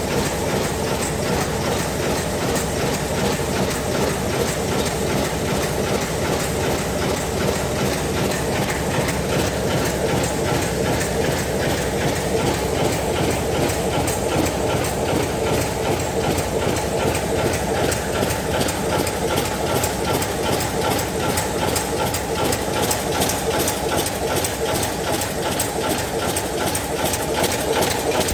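DEBAO-138S high-speed paper cup forming machine running at production speed, making 6 oz drink cups. Its mechanism gives a steady, fast, rhythmic mechanical clatter.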